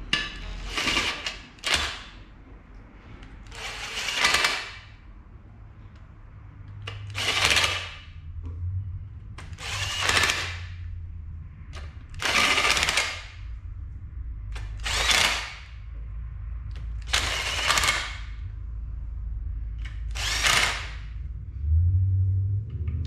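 Cordless drill with a socket extension spinning sump bolts into a Holden Ecotec V6 block, in about nine short bursts of under a second each, two to three seconds apart, as each bolt is run down before torquing.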